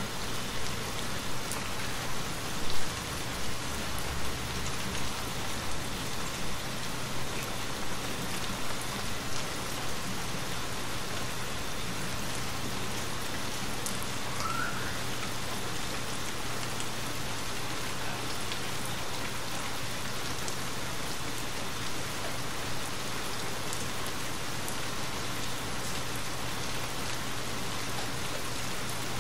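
Steady rain falling as an even hiss, with scattered louder ticks through the first ten seconds or so.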